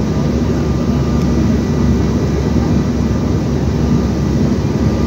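Steady cabin roar inside a CRJ-700 regional jet on approach, from airflow and its rear-mounted turbofan engines, with a faint steady whine above it.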